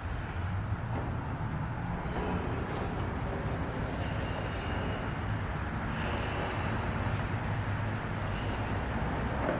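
A red latex balloon being blown up by mouth, breath rushing into it, over a steady low rumble.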